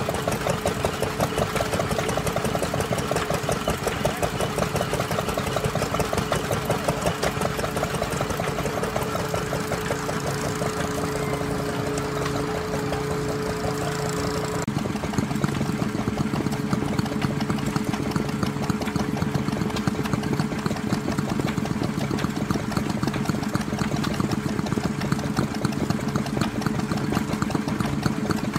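Vintage stationary engines running steadily with a rapid repetitive chugging. About halfway through the sound changes abruptly to a different small stationary engine running on its own, with a lower, steadier beat.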